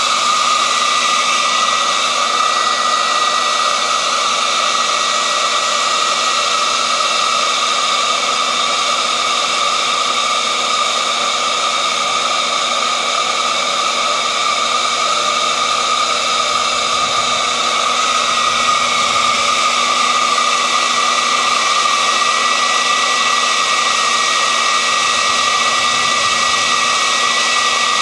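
A small electric pump runs steadily, its motor whining at a nearly constant pitch over a continuous hiss, consistent with a model fire truck's high-pressure pump spraying water.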